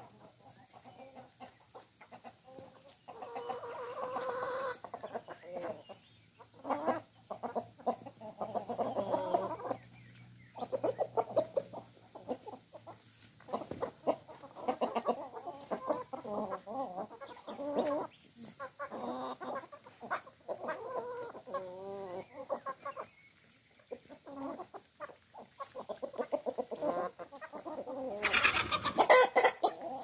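A flock of domestic hens clucking and calling over and over as they peck at feed. There is one louder, brighter call near the end, lasting about a second and a half.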